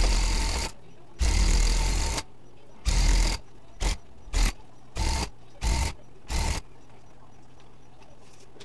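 Handheld electric tufting gun running in short stop-start runs as it punches yarn into the backing cloth: about eight runs, the later ones briefer, stopping about six and a half seconds in.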